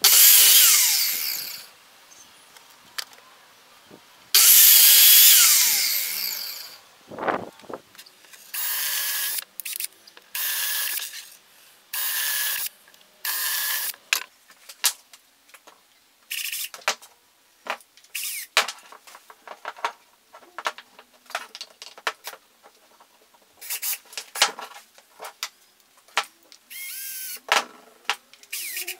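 Electric mitre saw making two loud cuts through wood, followed by a power drill running in a series of short bursts as it drills and drives screws into plywood blocks, with clicks and knocks of handling in between.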